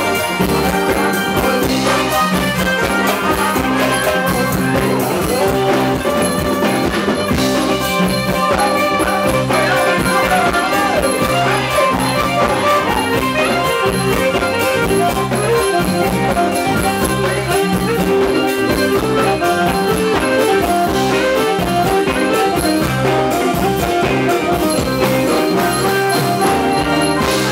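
Loud live band music playing a Thai ramwong dance song, with a steady beat.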